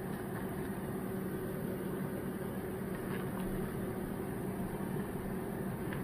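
Steady hum of a fan or motor running, with an even rushing noise behind it.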